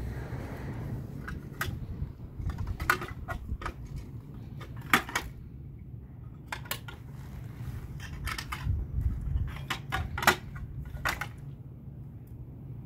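Irregular metallic clicks and clatters from a manual wheelchair's frame being handled, over a steady low hum.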